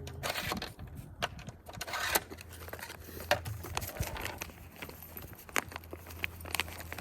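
Small metal hardware being handled: scattered clicks and clinks of carriage bolts and washers, with rustling, over a steady low hum.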